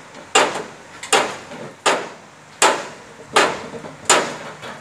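Sharp knocks repeating at an even pace, about one every three quarters of a second, six or so in a row, each with a short ring after it.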